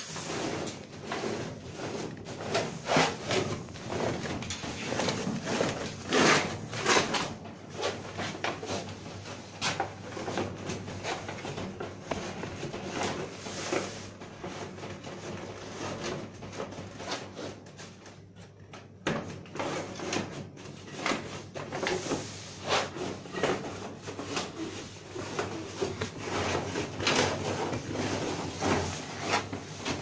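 Perforated cardboard filter panels being handled and pushed into a sheet-metal spray-booth frame: irregular rustling, scraping and knocks, which ease off for a few seconds past the middle.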